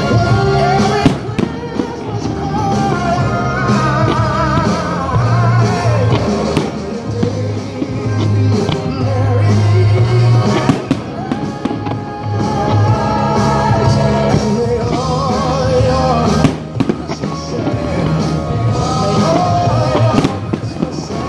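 Music with a singer over a heavy bass line, with fireworks going off as sharp bangs several times through it.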